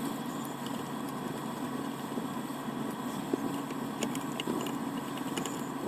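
Steady mechanical hum with a few faint light clicks partway through, as screws are taken out of a plastic water-pump housing.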